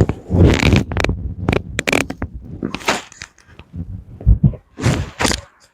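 Rustling, shuffling and irregular low thumps of a person turning over on a padded chiropractic treatment table, with one heavier thump about four seconds in.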